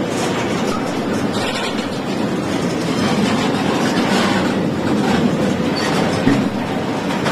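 Freight wagons carrying nuclear-waste casks rolling past on the rails: a steady rumble of steel wheels on track with scattered clicks.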